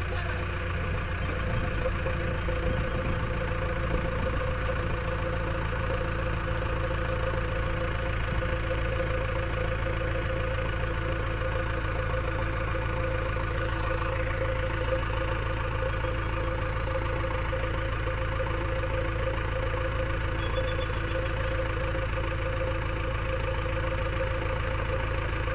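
Diesel engines of JCB 3DX backhoe loaders idling steadily, a constant low rumble with a steady whine on top.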